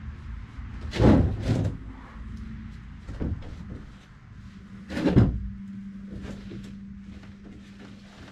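Four hollow knocks and clunks from work on a small boat's hull during a hand fiberglass repair, the loudest about a second in and about five seconds in, over a steady low hum.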